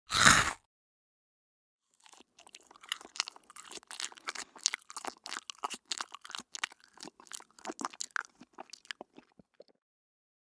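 One loud, short crunch of a bite into crunchy food, then a pause, then a person chewing crunchy food in a long run of quick, uneven crunches lasting about eight seconds.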